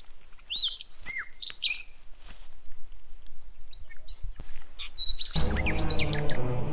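Wild birds chirping and calling in short rising and falling whistles, over a high thin wavering tone for the first two seconds or so. About five seconds in, music with a low bass line starts.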